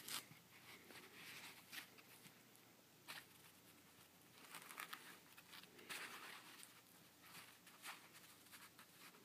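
Near silence with faint, scattered rustling and small clicks of hands handling things, a few louder rustles in the middle.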